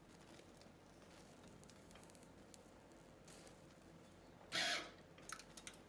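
Faint background hiss, then a brief sizzling burst from a gasless flux-core MIG welder tacking a pinhole in the patch weld, followed by a few small crackles.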